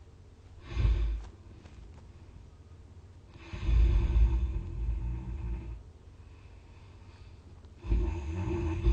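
A sleeping person snoring loudly, deep and rattling. There is a short snore about a second in, a long snore from about three and a half to six seconds, and another beginning near the end.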